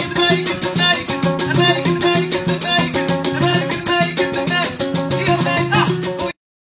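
Music with a quick steady beat and a woman singing into a microphone over it; it cuts off abruptly about six seconds in.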